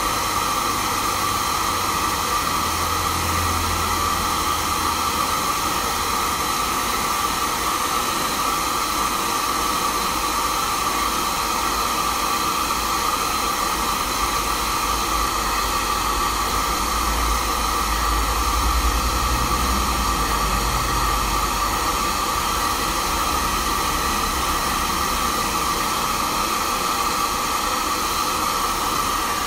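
Handheld hair dryer blowing steadily: a loud, even rush of air with a steady whine, held on the hair as locks are twisted and dried. A low rumble swells for a few seconds past the middle.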